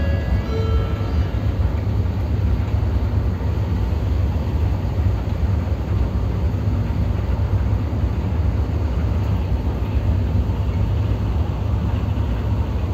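Steady low rumble on the open deck of a ferry under way: wind on the microphone over the ship's engine noise. The last notes of a descending chime fade out about a second in.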